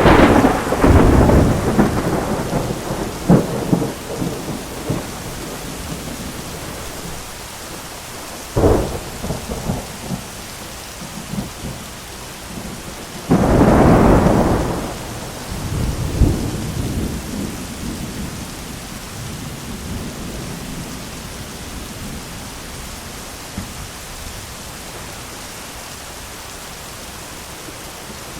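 Steady heavy rain with rolls of thunder. A thunderclap opens and rumbles away over several seconds, a sharper crack comes about a third of the way in, and the loudest clap comes about halfway through with more rumbling after it. The rest is rain alone.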